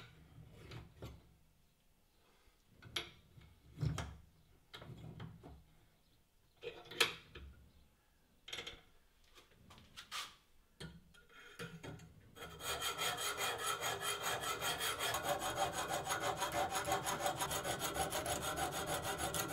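Scattered clicks and knocks as a Lansky sharpening clamp holding a Victorinox pocket-knife blade is turned over and handled, then about twelve seconds in a steady, rapid rasping of an extra-coarse sharpening stone stroked back and forth along the small blade's edge, about five or six strokes a second, cutting off suddenly at the end.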